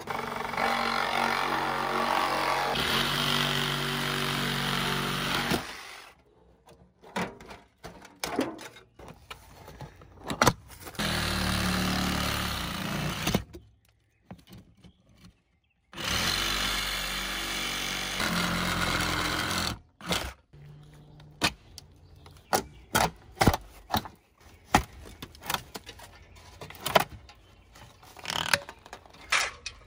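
A power tool running in three steady bursts of a few seconds each, working on the camper's metal siding. It is followed by a long run of sharp clicks and knocks as the aluminium siding and trim are pried and pulled off.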